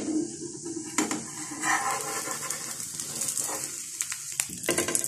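Egg-and-bread omelette sizzling steadily in hot oil in a frying pan, with a slotted spatula scraping and tapping against the pan a few times as it is worked under the omelette to flip it.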